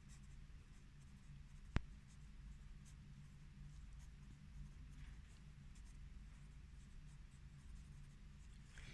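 Pencil writing on a paper notebook page: faint scratching strokes, with a single sharp click a little under two seconds in.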